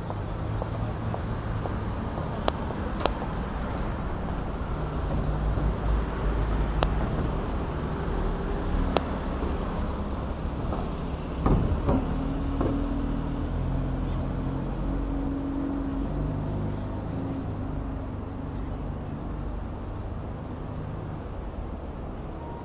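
Road traffic: motor vehicles running past with a steady low engine rumble, a few sharp clicks early on and a louder knock about halfway through.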